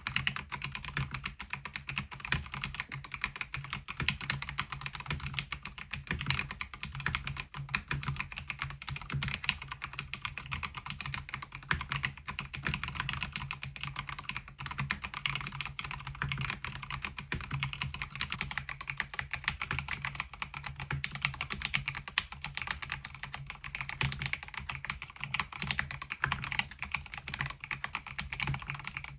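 Continuous typing on a MelGeek Mojo68 mechanical keyboard fitted with MOA-profile keycaps: a dense, unbroken stream of keystroke clacks with no pauses.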